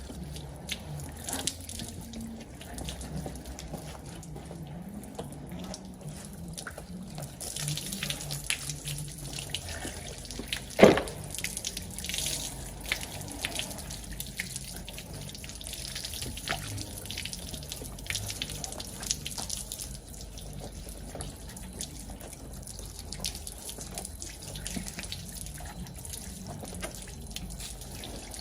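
Water rinsing down a freshly wet-sanded car bumper, splashing and dripping, with one sharp knock about eleven seconds in.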